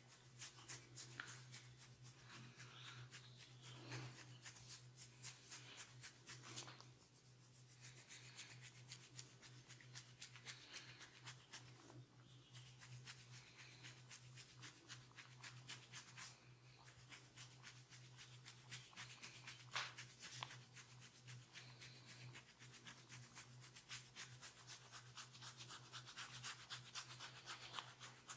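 Hands rubbing and kneading skin and hair during a massage: a quiet, dense, continuous run of soft rubbing and scratchy crackles.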